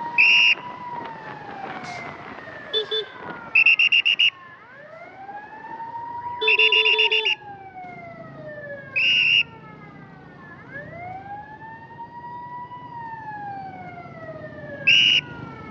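Ambulance siren on a slow wail, rising, holding and falling about every five seconds. Loud, high-pitched horn beeps cut over it: single toots, a quick run of beeps about four seconds in, a longer honk about six seconds in, and one more near the end.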